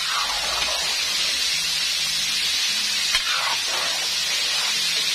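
Chicken pieces deep-frying in hot oil in a large wok, a steady sizzle throughout, with two sharp knocks about three seconds apart.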